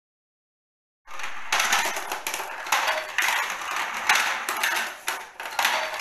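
Plastic balls rolling up a toy roll-up arcade ball ramp and clattering into the scoring end, a continuous rattle with many quick clicks and knocks starting about a second in.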